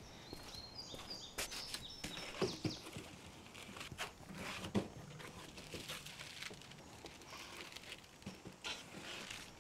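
Footsteps and the knocks, clatter and rustle of things being handled in a shed, with a sharp knock about two and a half seconds in and another just under five seconds in, and rummaging in a cardboard box near the end. A few short high notes sound in the first second or so.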